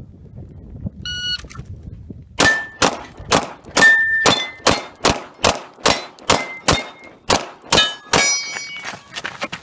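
A competition shot timer beeps once, and about a second later a fast string of pistol shots begins, two to three a second for about six seconds, with steel targets ringing as the hits land.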